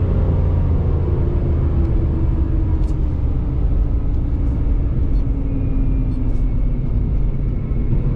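ProCharger-supercharged 5.7 L Hemi V8 running as the car slows down after a quarter-mile pass, its engine note falling steadily.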